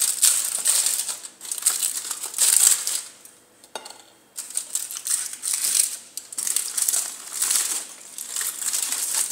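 Aluminium foil crinkling and rustling in repeated bursts as it is handled and peeled back from a slab of sesame candy, with a short pause about three seconds in.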